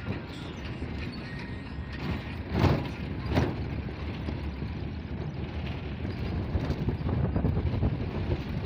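Steady low rumble of a moving vehicle, with two louder sharp sounds about two and a half and three and a half seconds in. No goat or sheep calls are heard.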